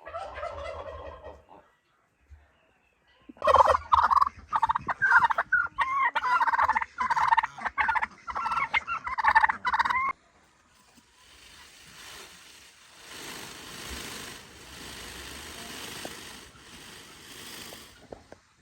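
Farm fowl calling loudly in quick rattling runs for about six seconds, then a fainter steady rushing noise.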